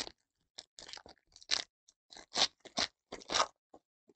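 Foil wrapper of a Panini Donruss Elite football card pack crinkling and tearing as it is pulled open by hand, in a string of short, irregular crackles.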